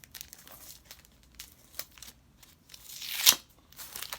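Packaging being handled and opened: light crinkling and rustling, with one loud tearing rip about three seconds in.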